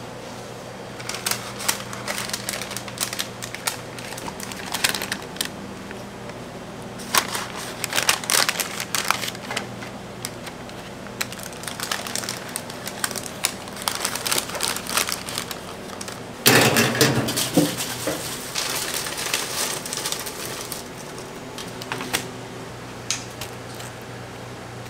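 Paper crinkling and rustling in irregular bursts as burgers are handled into paper sleeves, with a louder burst about two-thirds of the way in. A steady low hum of kitchen ventilation runs underneath.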